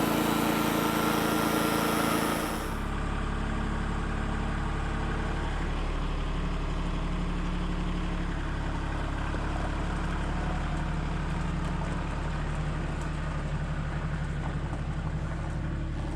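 A louder, higher-pitched motor for the first few seconds cuts abruptly to an engine idling steadily with a low drone.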